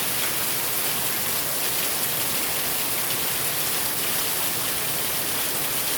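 Heavy rain pouring down, a steady even hiss without letup.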